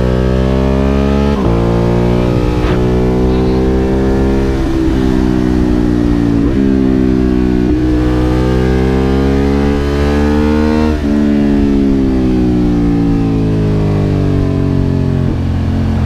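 Motorcycle engine under way, its revs climbing and then dropping sharply several times as gears are changed. Later it falls slowly in pitch as the bike slows.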